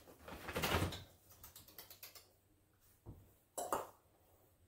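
A baby lionhead rabbit's paws scratching and ticking on fabric and rug as it hops about. There is a rustle, then a quick run of light ticks, and a short scuffle near the end.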